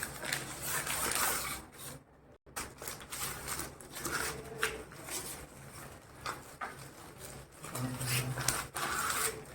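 Packaging being opened and handled as a boxed tripod is unpacked: scattered rustles, scrapes and light clicks, with a brief drop to near silence about two seconds in.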